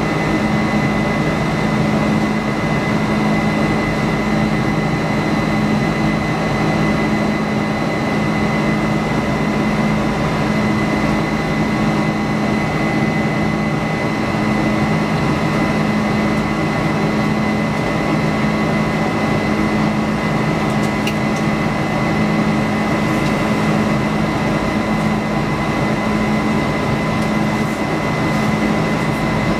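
Steady cabin drone of a Boeing 747-400's turbofan engines during the climb out after takeoff, heard from inside the cabin over the wing: an even rushing noise with a low hum and a thin whine, each held at a fixed pitch.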